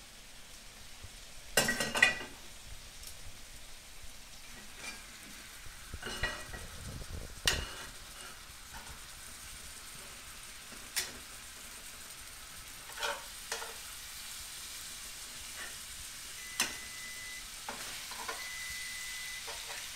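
Pork chops with peppers and onions sizzling in a cast-iron skillet, with sharp metal clinks of tongs against the pan and the ceramic plate as the chops are lifted out, the loudest a pair about two seconds in.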